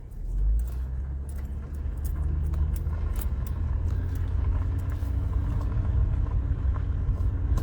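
Motor vehicle driving: a steady low engine and road rumble that swells about half a second in, with scattered sharp clicks and rattles over it.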